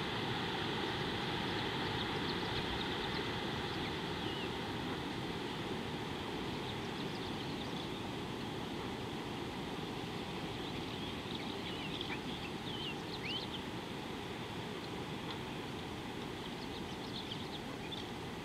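Steady rushing outdoor ambience with no distinct source, with a few faint, short bird chirps scattered through it, most of them around the middle and near the end.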